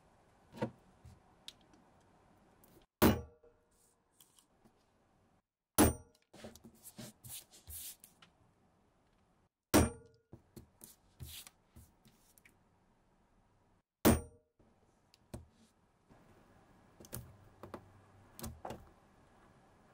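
Metal hollow leather punch hammered through a suede cutout: four sharp, ringing strikes several seconds apart, each punching a hole, with small clicks and taps between them as the punch is set in place. Light tool clicks and scraping on the suede near the end.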